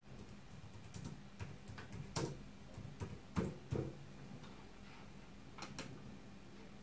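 Typing on a computer keyboard, a scatter of key clicks with a few heavier taps, then two mouse clicks near the end, over a faint low hum.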